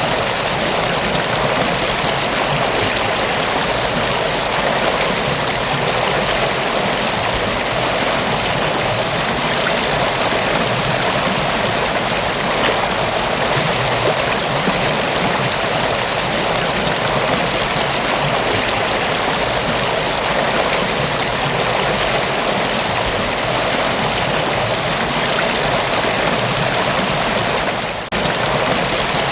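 Mountain waterfall: a steady, dense rush of falling water, with a brief dip in level about a second before the end.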